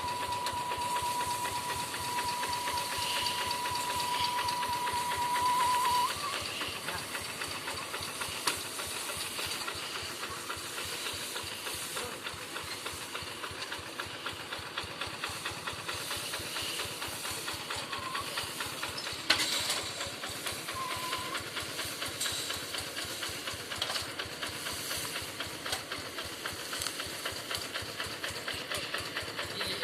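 Walk-behind rice-field tractor's single-cylinder diesel engine running steadily, with a fast, even knocking beat and a hissing exhaust. A steady high tone sounds over it for about the first six seconds, then stops.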